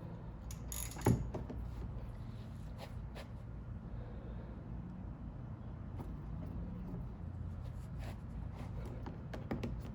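Socket wrench being worked on a front brake caliper's 13 mm bolt: scattered mechanical clicks, with one sharp knock about a second in, over a low steady hum.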